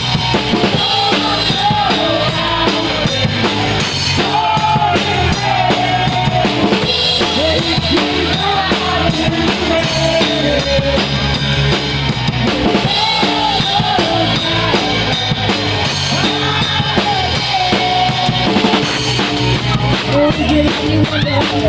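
Live rock band playing an instrumental break, heard from beside the drum kit: bass drum, snare and rimshots stand out, with a melody line over the band.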